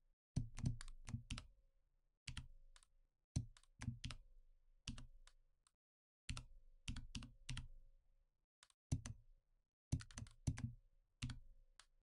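Computer keyboard keys and mouse buttons clicking in short clusters of a few quick clicks, with pauses between.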